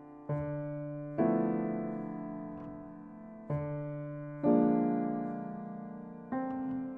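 Piano playing slow chords, a new chord struck every second or two and left to ring and fade.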